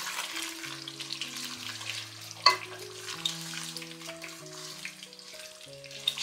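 Chicken curry sizzling in a nonstick kadai as a silicone spatula stirs through the thick gravy, with one sharp knock of the spatula against the pan about two and a half seconds in. Soft background music with long held notes runs underneath.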